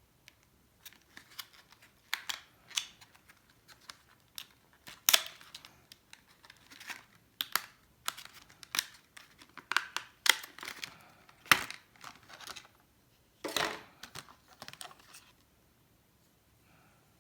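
Plastic packaging of a RAM kit being handled and opened: irregular crinkling and sharp crackles, some loud snaps among them, stopping about fifteen seconds in.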